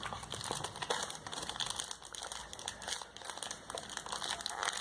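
Plastic packaging crinkling irregularly as the phone's charger and USB cable are handled and taken out of their wrapping.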